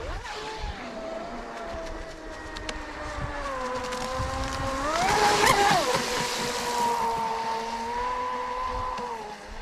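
Brushless electric motor of a 40-inch scale RC race boat (TP 4050 1700kv on 4S) whining at speed. The whine climbs in pitch and loudness as it sweeps close through a turn with a hiss of spray about five seconds in, drops in pitch as it goes by, then holds steady as it runs away across the water.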